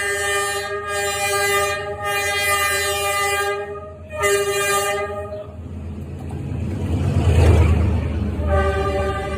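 A train horn sounds long steady blasts on one chord: the first runs for about three and a half seconds, then a shorter one follows about four seconds in. A low rumble of the train rolling by swells about two-thirds of the way through, and the horn starts again near the end.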